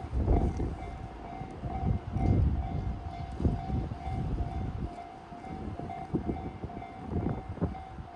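Japanese level-crossing bell ringing in a steady, evenly repeating tone over the low rumble and irregular clunks of a JR Kyushu 813 series electric train passing over the crossing.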